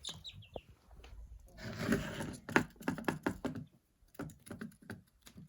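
Light rustling, then a run of quick taps and clicks, with a few faint chick peeps at the start.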